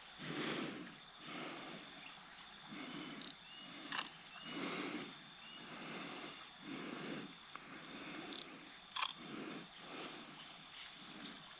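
Handheld digital camera taking photos: a short high beep followed about half a second later by a sharp shutter click, twice. Soft swells of noise come about once a second underneath.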